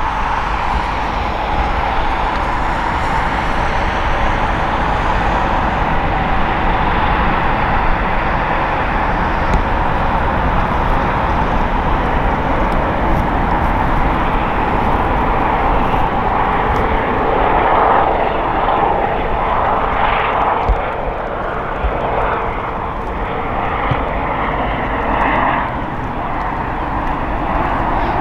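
Airbus EC135 helicopter in flight as it climbs away: a steady turbine-and-rotor sound with a strong whine, wavering unevenly in the second half.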